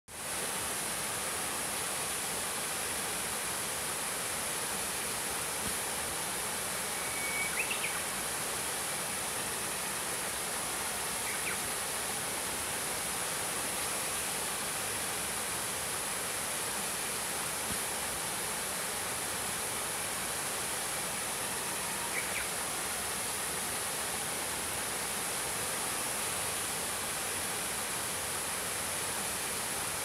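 Small waterfall splashing steadily over rocks into a pool. A Japanese bush warbler (uguisu) sings faintly three short times over it, the first a held whistle ending in a quick flourish about seven seconds in.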